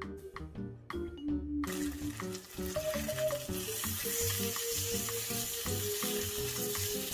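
Seasoned chicken breasts frying in oil in a pan: a steady sizzle that starts suddenly about one and a half seconds in. Background music plays throughout.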